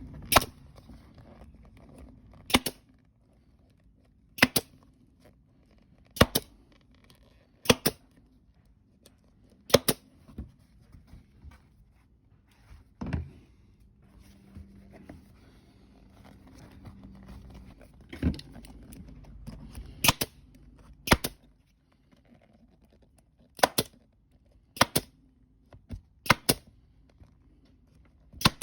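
Pneumatic staple gun firing staples through the vinyl cover into the plastic of a console armrest lid: about fifteen sharp shots, one every second or two, with a longer pause around the middle.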